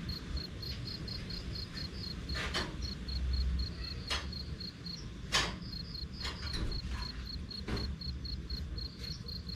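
A cricket chirping steadily in quick, high pulses, about six a second, over a low rumble of strong wind. Several sharp clinks and knocks come at irregular moments throughout.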